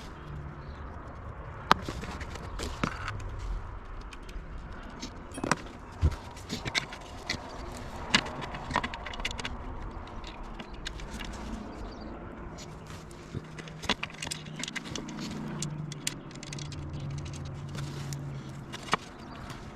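Hand tools and small metal hardware (screws, washers, a socket) clinking, tapping and scraping in irregular clicks and knocks while parts are fitted to an electric scooter. A low steady hum runs underneath.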